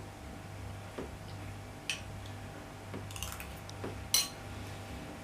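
A few light, sharp clinks of kitchen dishes and utensils over a steady low hum.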